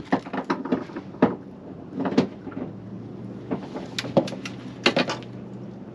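Handling noise aboard a small fishing boat: a series of irregular sharp knocks and clunks, with a faint steady low hum underneath.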